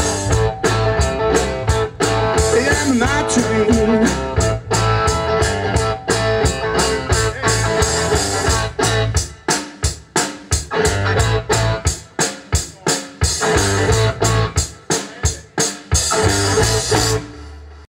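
Blues-rock band playing an instrumental outro: electric guitar with bent notes over a bass line and a drum kit keeping a steady beat. The song stops sharply near the end.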